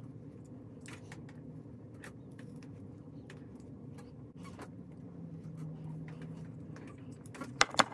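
Low steady room hum with scattered light clicks and taps as an electric hot comb is handled and pulled through the hair, a few sharper clicks near the end.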